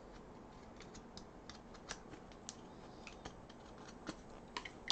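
Faint, scattered clicks and light scratching as hands handle a freshly 3D-printed PLA plastic knuckle duster.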